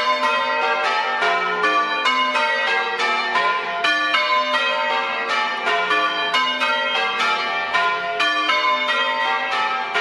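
Church bells rung in changes by ringers on the ropes: a steady, unbroken run of bell strokes of different pitches, several a second.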